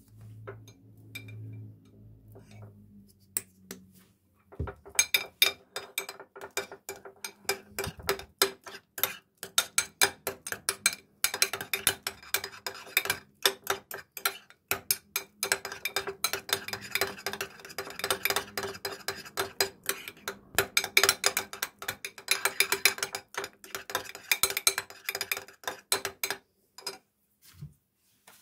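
Metal spoon stirring slime in a glass dish: rapid, continuous clinking and scraping of metal against glass. It starts about five seconds in and stops a couple of seconds before the end.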